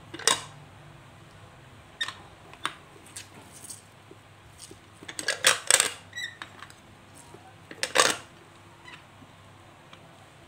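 Metal knocks and clicks from a cast-metal lever hand juicer: pineapple chunks go into its cup and the lever is worked to crush them. A cluster of knocks around five to six seconds in is followed by a brief squeak, and the loudest clank comes near eight seconds.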